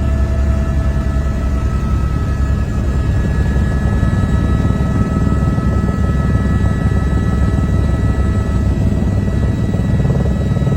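Helicopter in flight: steady, loud rotor and engine noise with a fast even beat, and a constant high turbine whine over it.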